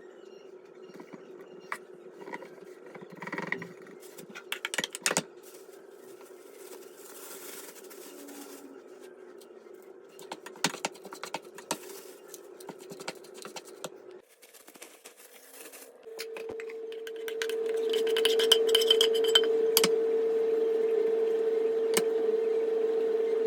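Clinks and scrapes of small objects being handled over a steady hum. About two-thirds through, the hum stops, and after a short pause a louder, steady motor hum starts with more clicking over it.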